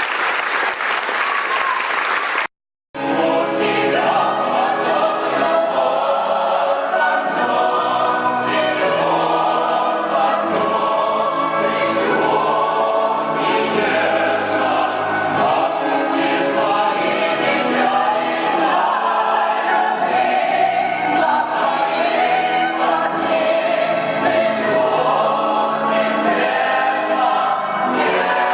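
Audience applause, cut off abruptly after about two and a half seconds, then an ensemble of voices singing with orchestral accompaniment.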